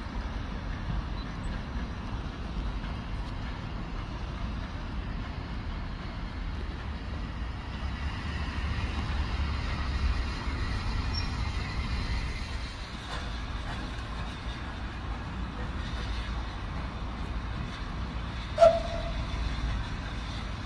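Steam tank locomotive running slowly out of a tunnel, a steady low rumble with the sound of its working. One short, loud whistle toot near the end.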